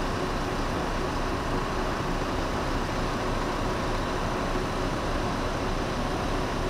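Scania bus moving slowly along a road: a steady, even running noise with a faint constant hum.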